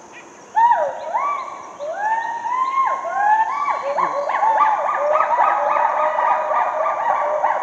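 Hoolock gibbon calling: a series of whooping calls that each rise and fall in pitch, starting about half a second in and coming faster and overlapping as the song builds. A steady high insect hum runs underneath.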